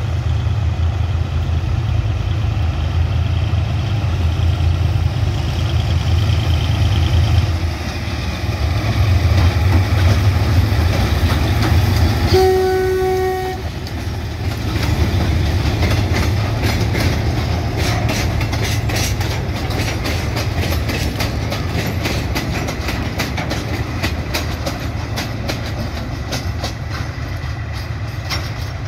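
SRT GE-class diesel-electric locomotive engine running as it hauls a train of oil tank wagons past, with one horn blast of about a second near the middle. After the locomotive goes by, the tank wagons' wheels click steadily over the rail joints.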